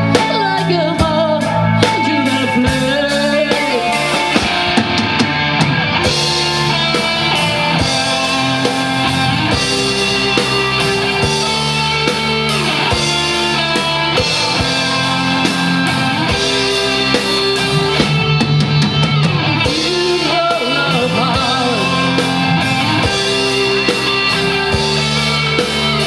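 Live rock band playing a song loudly: electric guitars and drum kit, with sung vocals.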